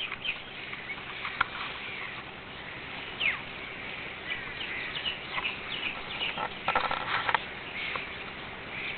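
Several birds calling: scattered short chirps and whistled sweeps over a faint steady outdoor hiss, with a few louder, harsher calls about seven seconds in.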